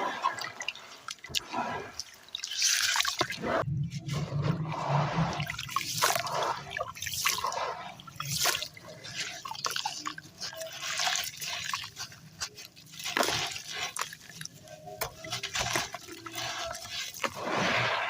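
Lumps of hand-made gritty red sand crumbling into water: irregular wet crunching with drips and splashes, bursts of sound coming at uneven intervals.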